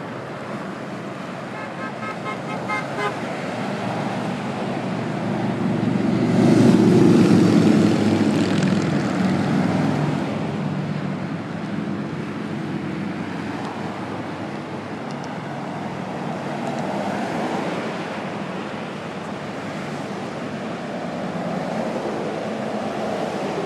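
Freeway traffic passing, with one vehicle going by close and loud about six to ten seconds in. A quick run of short beeps comes about two seconds in.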